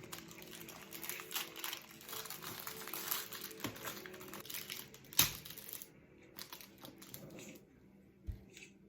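Close-up crinkling and crackling of something being handled by hand, dense for about six seconds with one sharper click about five seconds in, then thinning to a few scattered crackles.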